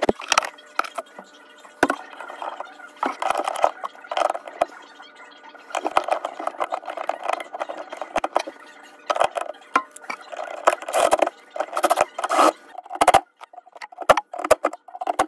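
Metal clinking, scraping and rattling in quick, irregular bursts as a garbage disposal's metal mounting ring and its screws are handled and fitted onto the sink drain flange.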